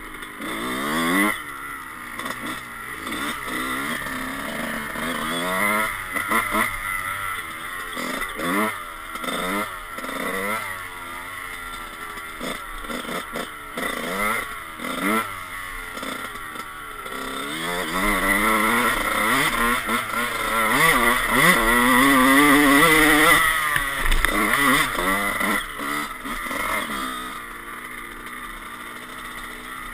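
Dirt bike engine revving up and dropping back over and over under hard throttle and gear changes, loudest about two-thirds of the way through, then easing to a quieter, steady run near the end.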